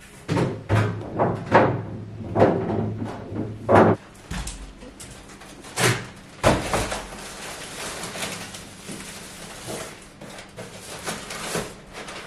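Groceries being unpacked in a kitchen: a quick run of knocks and thuds as items are put away, two sharper hits about six seconds in, then plastic carrier bags rustling as they are lifted and handled.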